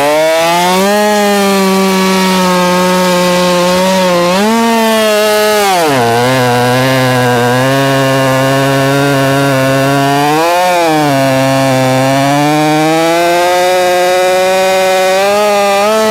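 Two-stroke chainsaw running at high revs and cutting into a log. Its engine pitch drops and holds lower about six seconds in as the chain loads up in the wood, rises briefly around ten seconds, dips again, then climbs back near the end.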